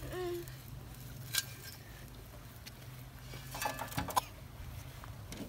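A steel spade scraping and digging into a heap of dry manure and tipping it into a metal wheelbarrow, with sharp knocks about a second and a half in and again about four seconds in. A young child's voice makes short sounds just after the start and again near four seconds.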